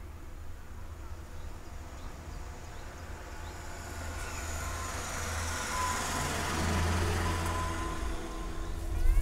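A road vehicle driving past: its noise builds slowly, is loudest a little past the middle, then fades away.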